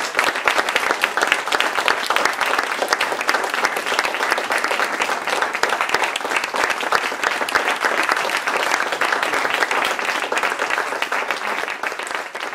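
Audience applauding, many hands clapping steadily in a dense patter, easing off a little near the end.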